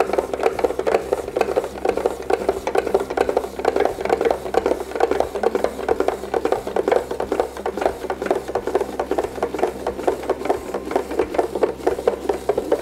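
A hand-cranked spiralizer's blades slice a zucchini into fine noodles as it is turned, giving a steady, rapid, even scraping.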